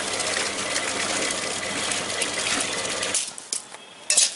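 Electric grinder motor running steadily while grinding chutney, then switched off about three seconds in. A couple of sharp metallic clatters of steel vessels follow near the end.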